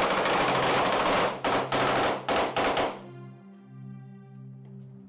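Long bursts of automatic rifle fire from Kalashnikov-style rifles, with brief breaks, cutting off suddenly about three seconds in. A held music chord runs underneath and is left alone after the shooting stops.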